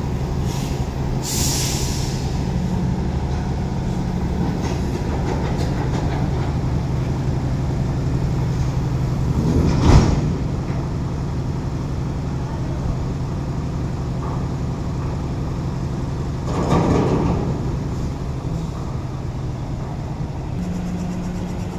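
Diesel engine of a Mitsubishi Fuso Super Great container truck running steadily at low speed as the truck creeps forward. Two short, louder bursts of noise stand out, about ten and seventeen seconds in.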